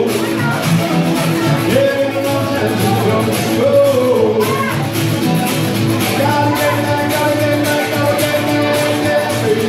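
Live rock band playing loudly, with guitar and a singing voice over a steady beat.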